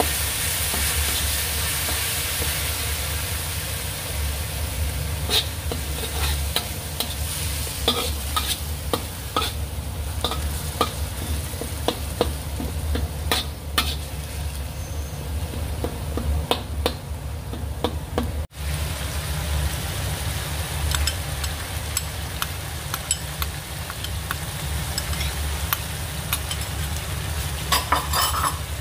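Dried-shrimp sambal sizzling in hot oil in a pan while a spatula stirs it, clicking and scraping against the pan every second or so. A steady low hum runs underneath.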